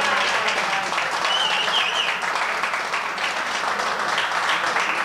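Spectators applauding with dense, steady clapping, mixed with voices calling out.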